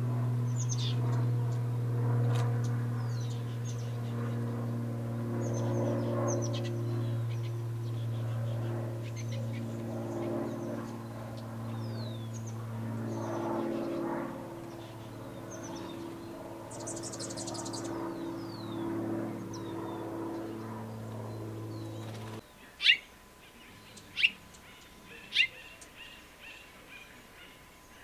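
Small birds chirping with short, high calls over a steady low hum. The hum cuts off suddenly about 22 seconds in. Then come three loud, sharp chip calls about a second apart, followed by softer chirps.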